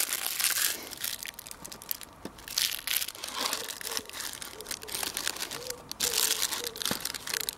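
Plastic food packaging crinkling and rustling in irregular bursts as it is handled and crumpled.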